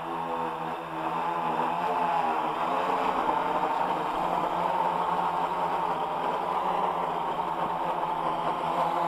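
AEE AP10 Pro quadcopter's propellers and motors buzzing in low, close flight: a steady hum whose pitch wavers slightly up and down as the drone manoeuvres.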